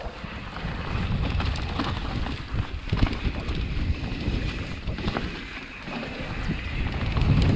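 Mountain bike rolling down a dirt flow trail: wind buffeting the microphone, tyres on dirt, and scattered clicks and rattles from the bike. It gets louder near the end as the bike picks up speed.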